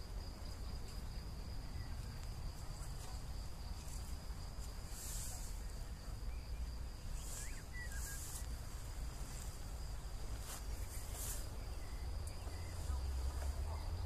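Meadow insects chirping: a steady high-pitched buzz with short, louder bursts of chirping every few seconds, over a steady low rumble.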